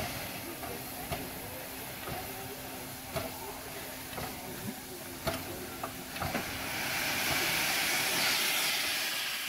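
Steam hissing from standing steam locomotives, dying down a little and then growing louder again in the last few seconds, with a few scattered light clicks and knocks.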